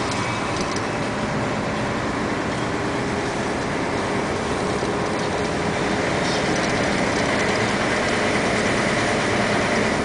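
Vehicle driving slowly along a narrow road, heard from inside the cab: steady engine and road noise with rattling, getting slightly louder in the second half.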